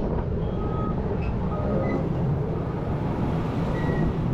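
Wind rumbling on the microphone over a distant engine drone, with a few faint short beeps from a truck's reversing alarm.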